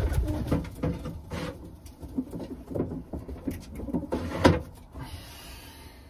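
Racing pigeons cooing, with scattered knocks and rustles and one sharp knock about four and a half seconds in.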